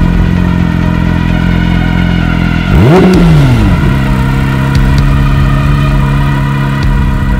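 Porsche 992 GT3's 4.0-litre flat-six idling through a Fi Exhaust valvetronic cat-back, with one quick throttle blip about three seconds in that rises and falls straight back to idle.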